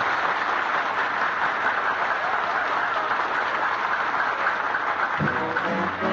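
A studio audience applauding after the announcer introduces the star. About five seconds in, the applause gives way as a band starts playing.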